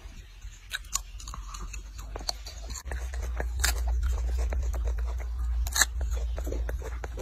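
A macaque chewing crunchy fruit: a run of crisp crunches, loudest about halfway through and again near the end, over a low rumble.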